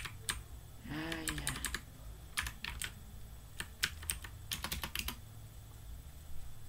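Computer keyboard keys being typed in short irregular bursts of clicks as a terminal command is edited and entered.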